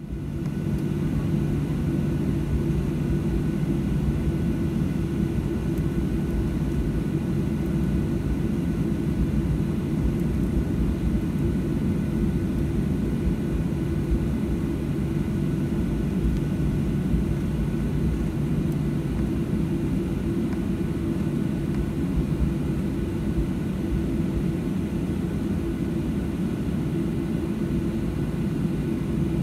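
Steady low drone of a Boeing 737-800 airliner's CFM56 jet engines, with faint steady whines above it and no change in level.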